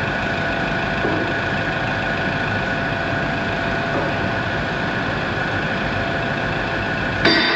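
Diesel engine of heavy equipment idling steadily. Near the end there is a sudden loud knock whose ringing fades.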